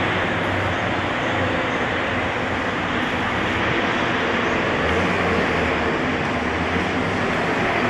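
Steady road traffic noise as a Scania N230UD double-decker bus and cars drive by, with a low engine hum under the noise.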